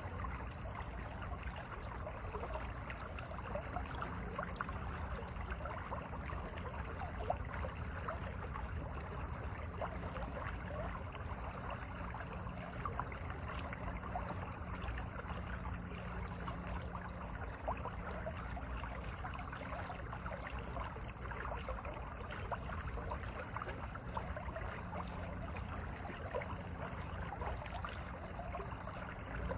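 Mountain valley stream running steadily, a continuous babbling rush of water.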